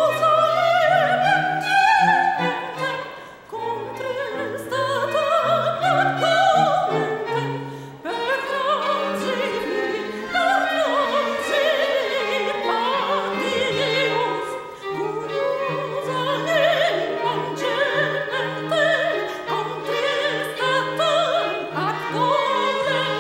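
Female operatic soprano singing a classical piece with vibrato, accompanied by a string quartet of violins and cello, whose long low notes are held under the voice.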